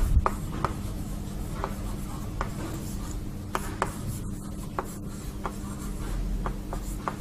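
Chalk writing on a chalkboard: a string of short, irregular taps and scratches as words are written. A steady low hum runs underneath.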